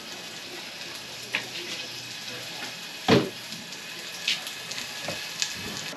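Kitchen handling noise: a few short knocks and clatters of a plastic basin and metal pots, the loudest about three seconds in, over a steady low sizzling hiss from pans cooking on a gas stove.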